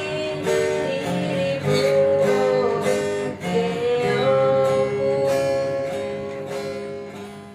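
Music: a plucked acoustic guitar playing chords under a melody line with a long held note, fading out over the last couple of seconds.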